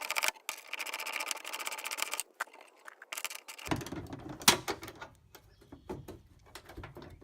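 Ratchet wrench clicking rapidly for about two seconds as a fender bolt is backed out, followed by scattered light clicks and knocks of tools against metal.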